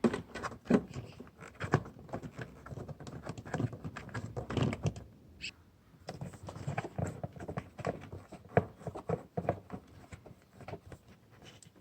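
Hand tools clicking, scraping and knocking in an irregular run as screws on a motorcycle's air filter housing are worked loose, with a brief high squeak about halfway through.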